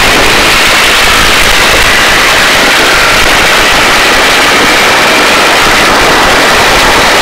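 Search-and-rescue helicopter hovering with its cabin door open: a loud, steady rush of rotor and turbine noise with a faint high whine.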